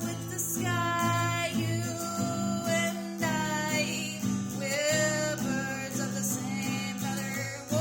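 A solo singer singing a melody over acoustic guitar accompaniment.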